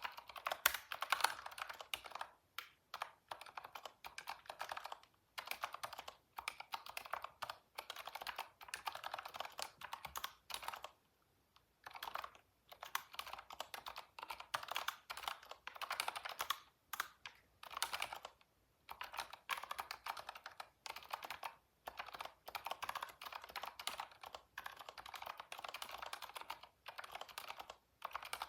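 Computer keyboard being typed on in fast bursts of keystrokes, broken by short pauses, the longest about eleven seconds in.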